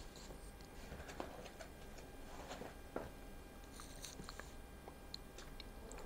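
Faint handling sounds as the parts of a rotary WDT coffee tool are unpacked and fitted together: light taps, clicks and brushing, with one sharper click about three seconds in.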